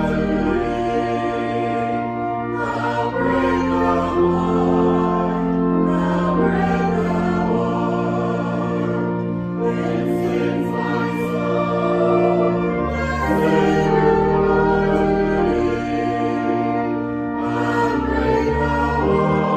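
Music: a choir singing a slow hymn in long held chords over a sustained low bass line, the chords changing every few seconds.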